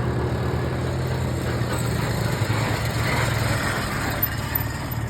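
Quad bike engine running steadily at low revs, with a fast, even pulsing.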